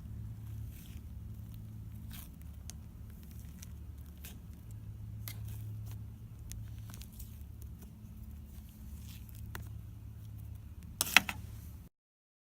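Butter slime being poked and squished by hand, giving scattered soft clicks and small pops over a steady low hum, with a louder crackling squish about eleven seconds in. The sound cuts off to dead silence just before the end.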